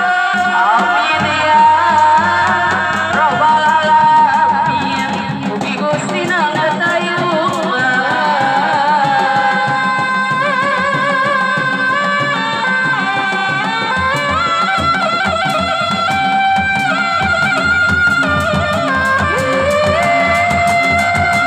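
Sundanese kidung bubuka, an opening ritual song, sung with instrumental accompaniment in a wavering, ornamented melody. A low, steady beat comes in about two-thirds of the way through.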